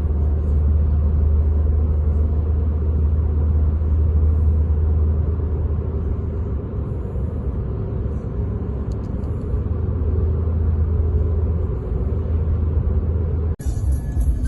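A vehicle driving at road speed: a steady low engine and road rumble that holds evenly throughout, with no distinct events.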